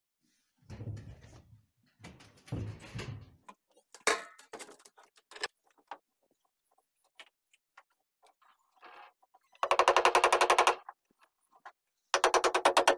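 Dull thuds and knocks of footsteps on a wooden ladder. Near the end come two loud bursts of rapid knocking, about a dozen knocks a second, each lasting about a second.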